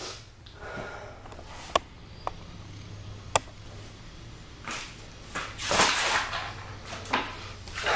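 Handling noise: three sharp clicks, then a few seconds of scraping and rustling, loudest in the middle, as tools and a tire are worked by hand.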